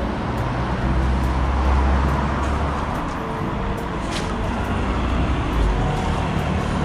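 Steady outdoor street noise with a low, traffic-like rumble that swells about a second in, and a faint click about four seconds in.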